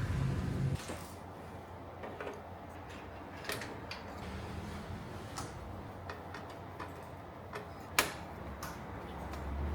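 Scattered small clicks and taps of computer parts being handled and fitted during a PC build, with one sharp click about eight seconds in. A low rumble underneath fades after the first second and comes back near the end.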